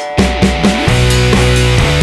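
Loud background rock music with guitar, the full band coming in just after the start.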